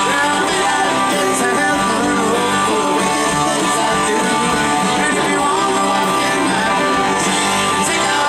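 Live Southern rock band playing, electric guitar to the fore, in a passage between sung lines.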